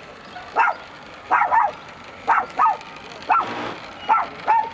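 Dog barking repeatedly in short, sharp barks, about eight of them, several coming in quick pairs.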